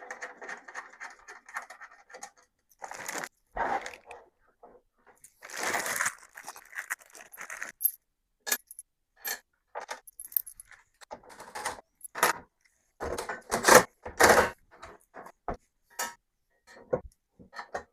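Small metal hardware clinking and scraping as screws and spacers are handled and fitted to a TV mount bracket: irregular clicks and rattles with a few longer scrapes.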